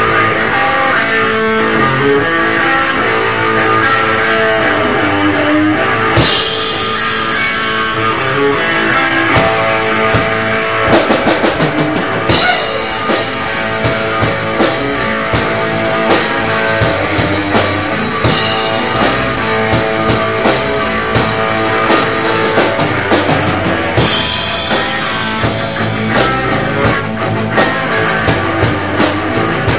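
Garage punk rock band playing, recorded on a boombox in a basement: two electric guitars, bass and a drum kit, with loud cymbal crashes about every six seconds.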